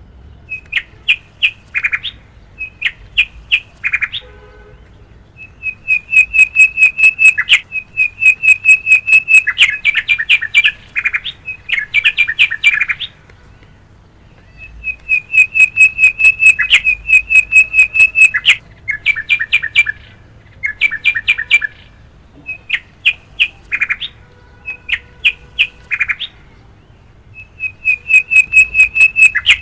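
A bird chirping in fast runs of short, high notes, about eight to ten a second, in bursts of one to three seconds with short pauses between them.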